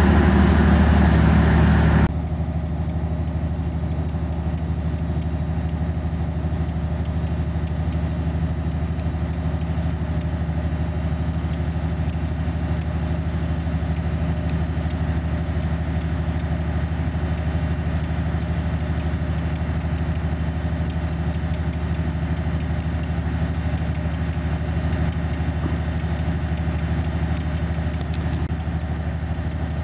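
A cricket chirping steadily in a quick, even rhythm, a few chirps a second, over the low, steady hum of the standing train's diesel engine idling. The train rumble is louder for the first two seconds, then drops suddenly.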